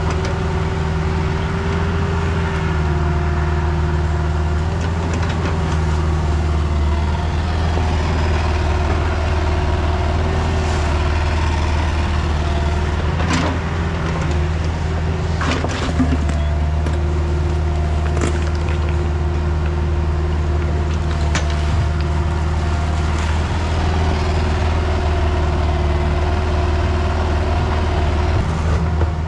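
Kubota mini excavator's diesel engine running steadily under work, with a whine from the hydraulics that comes and goes as the controls are worked. A few sharp knocks near the middle.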